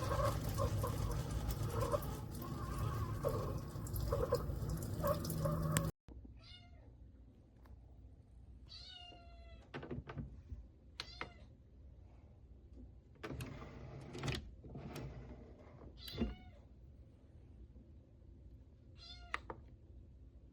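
About six seconds of steady, loud noise, which cuts off abruptly. After it come several short pitched animal calls, some gliding in pitch, with a few sharp clicks in between.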